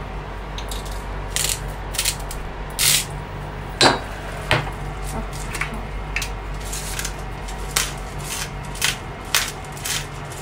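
Saucepan of creamy peppercorn sauce simmering on an induction hob: irregular pops and short hisses over a steady low hum.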